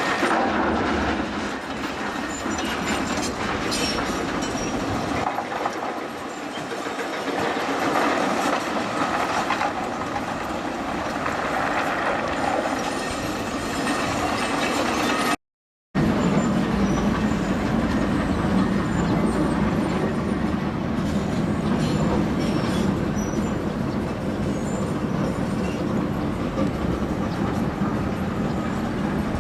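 Train running on rails, with wheels clattering over the rail joints. The sound cuts out for a moment about halfway and then picks up again, steady and dense.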